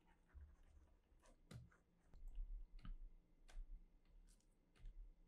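Faint, irregular clicks of a computer mouse and keyboard being worked, scattered every half second or so, over a faint low hum.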